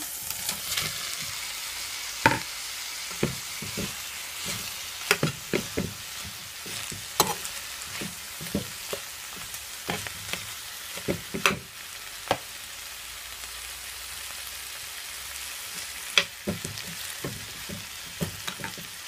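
Corned beef and chopped herbs sizzling in hot vegetable oil in a pot, with a utensil knocking and scraping against the pot in irregular sharp taps as it is stirred in.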